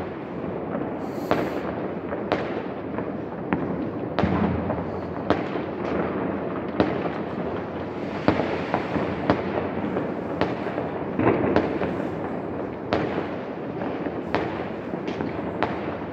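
Fireworks going off: a continuous background of distant bangs and crackle, with sharper single reports at irregular intervals, about one a second.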